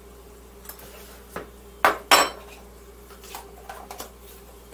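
A metal spoon clinking and knocking against a plate and containers, about six short clinks, the loudest two close together about two seconds in.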